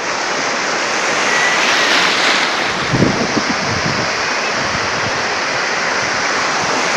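Sea surf washing steadily onto the shore, swelling about two seconds in, with wind buffeting the microphone in low rumbles around the middle.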